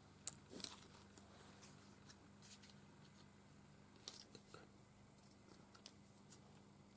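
Faint rustles and a few sharp clicks of paper leaf cut-outs being handled and laid onto a journal page, over near-silent room tone with a low hum. The sharpest click comes right at the start, and another small cluster about four seconds in.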